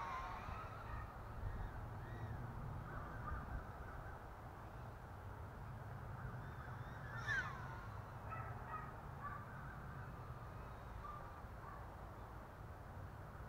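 ASUAV Awesome F100 brushless micro FPV quadcopter flying, its motors and propellers whining faintly, the pitch sweeping up and down as the throttle changes, with sharper sweeps near the start and about seven seconds in. A low rumble of wind on the microphone runs underneath.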